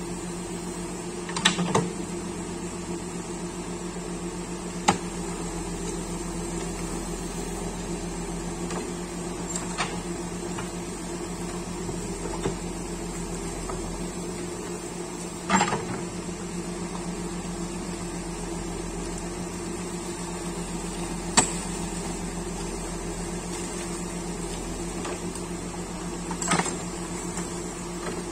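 Backhoe loader's diesel engine running steadily at a constant speed, with a handful of short, sharp clanks from the working machine at irregular intervals.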